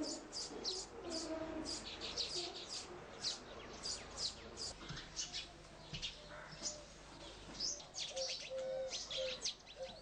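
Baya weavers chattering in a flock: many quick, high chirps tumbling over one another, with a few lower held notes underneath that grow stronger near the end.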